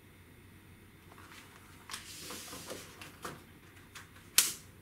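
A laptop and its packaging being handled on a table: light knocks and a brief rustle, then one sharp, loud click about four and a half seconds in.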